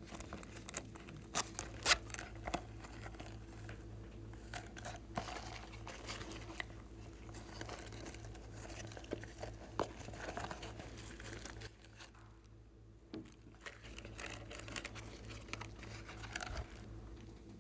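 Irregular crinkling and crackling from handling a silicone zip pouch and crumbling small pieces onto slime, loudest about two seconds in and briefly quieter past the middle. A steady low electrical hum runs underneath.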